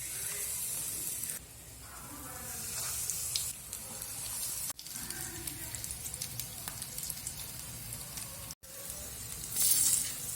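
Breaded fish cutlets frying in hot oil, sizzling and crackling, with a few sudden breaks and a louder surge of sizzle near the end.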